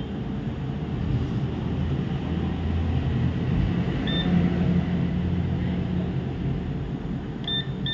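HOKI 813 digital multimeter's continuity buzzer giving a short beep about halfway through and again just before the end as the probes touch the 3 V rail jumper, the sign of a short on that rail. A steady low hum runs underneath.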